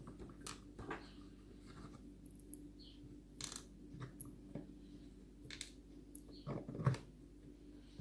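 Scattered small metallic clicks and taps of the pins being taken out of a pin tumbler lock and handled, with a louder cluster of knocks near the end.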